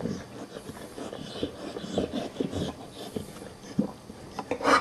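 An American Staffordshire Terrier mother licking and nuzzling her newborn puppy on a fleece blanket: irregular soft wet clicks and rustles, with a louder burst of sound near the end.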